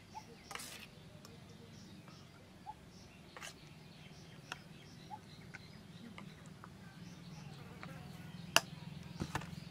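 Spoon scooping and tapping grated apple mixture into a plastic ice-lolly mould: scattered light clicks and scrapes, with a sharper tap about eight and a half seconds in.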